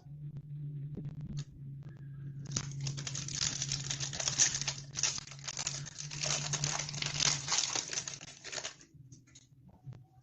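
Foil booster-pack wrapper being torn open and crinkled by hand: a dense crackling rustle lasting about six seconds, starting a couple of seconds in, with a few light clicks of handling before it.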